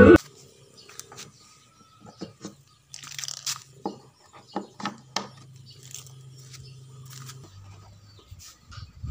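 Music cuts off abruptly at the start. Then come a series of sharp clicks and scrapes as a speaker cable's Speakon-type plug is pushed and twisted into a speaker cabinet's socket, over a faint steady low hum.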